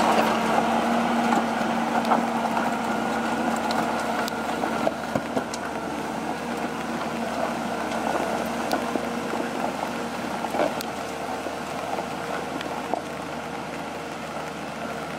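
Valmet 840.3 forwarder's diesel engine running steadily with a whine while the machine pulls a full load of logs, fading as it drives away, with scattered light clicks and knocks.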